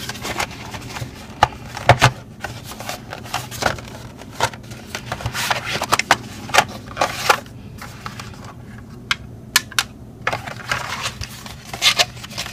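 Cardboard retail box of an SSD being opened by hand, its inner tray slid out and the drive taken out: a run of light clicks, taps and scrapes of cardboard and packaging.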